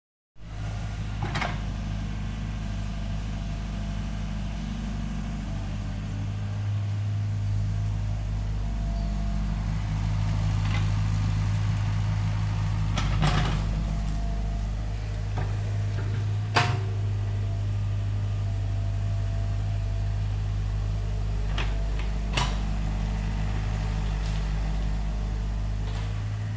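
Excavator engine running steadily with a low, even hum, with a few sharp clanks scattered through it.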